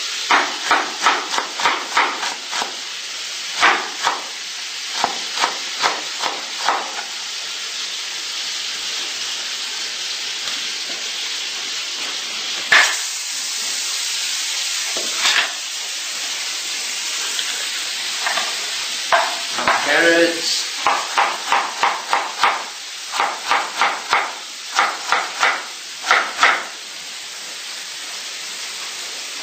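Kitchen knife chopping onions on a wooden cutting board in several runs of quick strokes, about four a second, over a steady sizzle of butter heating in a frying pan.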